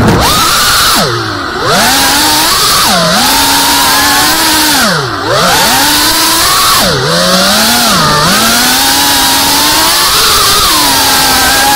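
Brushless motors and propellers of a 3.5-inch FPV quadcopter whining, the pitch swooping down and back up about five times as the throttle is chopped and punched again, over a steady hiss of rushing air.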